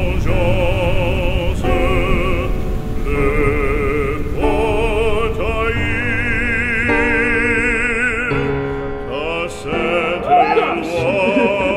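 Operatic music laid over the footage: a classical singing voice holding long notes with wide vibrato over orchestral accompaniment.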